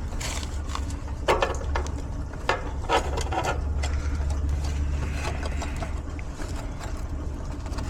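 A few sharp clicks and knocks of tools and metal parts being handled over a steady low hum.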